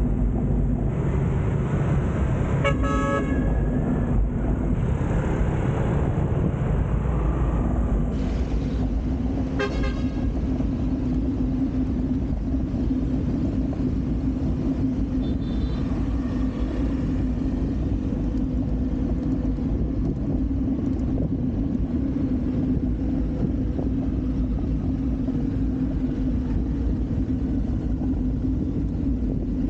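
Steady road-traffic rumble along a city street, with two short vehicle-horn honks, one about three seconds in and one about ten seconds in.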